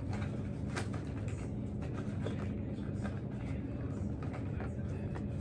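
Rustling and small clicks of a shiny plastic pencil pouch being handled and opened, over a steady low hum.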